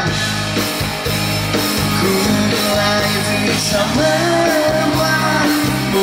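A band playing rock music.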